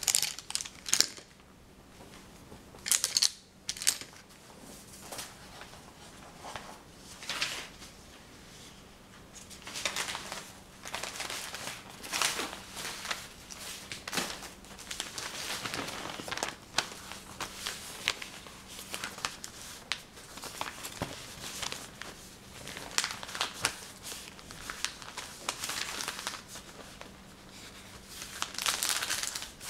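Close-up handling noises: irregular crinkling and rustling broken by sharp taps and clicks, loudest in a few bursts near the start and near the end.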